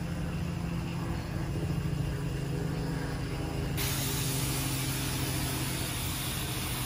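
G scale live-steam model locomotive hissing steam; the hiss starts suddenly about four seconds in and holds steady. A steady low hum runs underneath.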